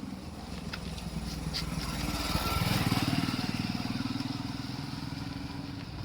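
A motorcycle engine running past, growing louder to a peak about halfway through and then fading, with a couple of faint clicks early on.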